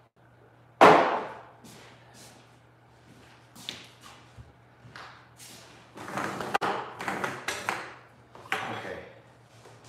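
A single loud thump about a second in, then a scatter of light knocks and clicks as small objects are picked up and set down on a worktable, thickest from about six to eight seconds in.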